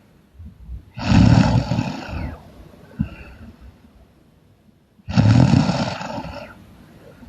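A sleeping woman snoring loudly: two long snores about four seconds apart, each lasting more than a second.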